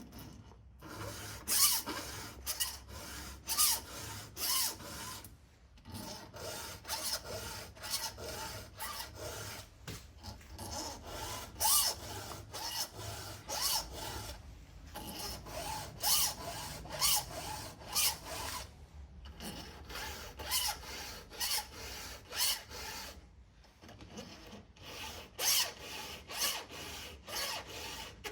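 Hand file rasping across the cutters of an Oregon 75CL square-ground saw chain, in repeated strokes a little under a second apart with a few short pauses. This is a routine touch-up sharpening of a chain dulled by about two tanks of fuel.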